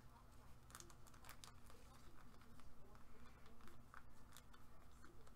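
Near silence, with faint scattered clicks and light rustling from a trading card and its plastic sleeve being handled by gloved hands.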